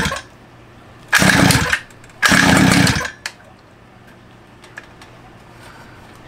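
Small 49cc two-stroke pocket bike engine, on a new carburetor not yet adjusted, cuts out, then fires twice in short spells of under a second each and dies again.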